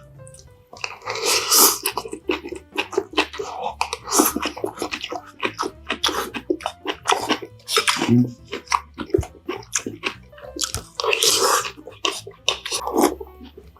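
Close-miked eating of bean sprout rice: crunchy, wet chewing with a quick run of mouth clicks and smacks, broken by a few longer wet, slurpy sounds.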